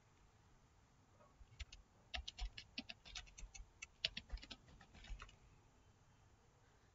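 Typing on a computer keyboard: a quick run of keystrokes from about a second and a half in until about five seconds in.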